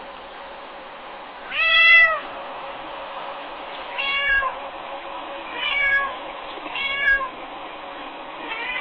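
Domestic cat meowing repeatedly: four separate meows a second or two apart, the first and loudest with a rise-and-fall pitch, and a fifth starting right at the end, over a steady background hiss.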